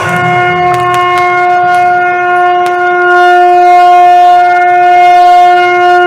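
Conch shell (shankh) blown in one long, steady note, the traditional sound that marks an auspicious moment in a Hindu ceremony.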